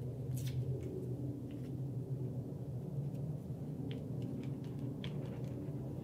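A steady low hum of room noise, with a few faint, scattered clicks and rustles of paper pieces being handled and pressed down with glue.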